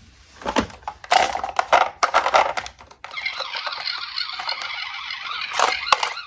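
Diecast toy cars clattering: a few sharp knocks in the first three seconds, then a continuous rattle of many small clicks.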